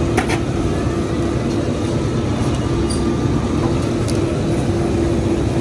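Steady machine hum with a low rumble and a constant droning tone, with a couple of light clicks just after the start.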